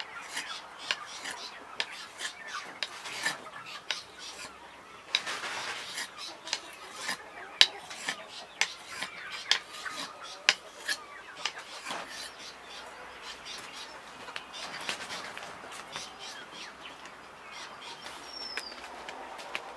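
Knife blade being sharpened on a stone: a run of sharp metallic scrapes and clicks, about two a second, that grows fainter after about twelve seconds. A bird gives a short falling chirp near the end.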